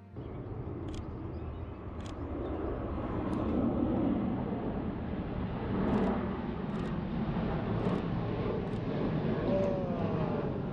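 Steady low rumble of distant engine noise, with short, high bird chirps about seven times.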